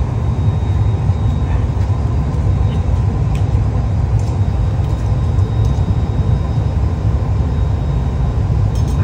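Steady low roar of a glassblowing hot shop's gas-fired furnace and glory hole, with a few faint clicks of tools against the steel table.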